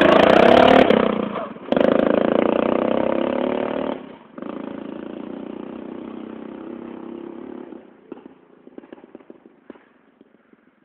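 13 PS racing lawn tractor engine running hard as it drives close past, cutting out briefly twice. It then fades steadily as the tractor drives away, with faint ticks and clatter near the end, until it is gone.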